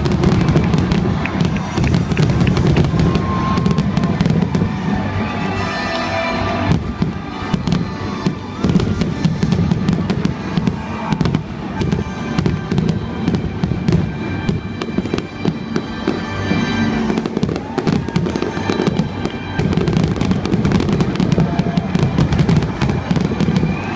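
Fireworks bursting in a dense, rapid barrage of bangs and crackles throughout, with music playing along.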